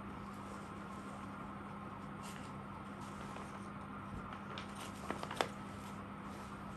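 Cloth garments and their crinkly wrapping and tags being handled and shifted, with a few quick crackles about five seconds in, over a steady low hum.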